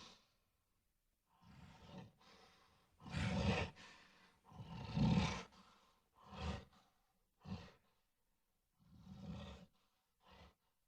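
Gorilla roaring in a series of short, rough calls, about seven of them, the loudest a little past the first few seconds and the later ones shorter and fainter.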